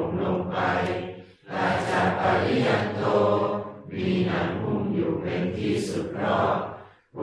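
Theravada Buddhist morning chanting: voices reciting together in a steady, near-monotone chant, in long phrases with short breaks for breath about a second and a half in, about four seconds in, and near the end.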